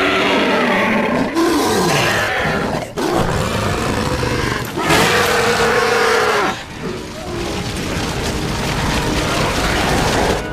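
Orc-like film creatures roaring and snarling. Gliding growls fill the first two seconds, and a long held roar comes about five seconds in.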